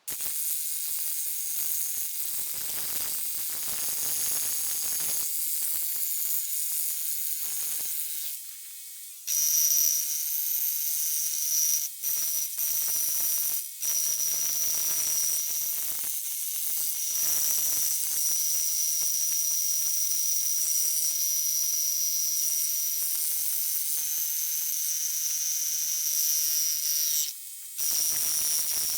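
Electric power tool working a concrete pier: a loud, steady, high-pitched whine with one strong high tone, dropping off briefly about eight seconds in and again near the end.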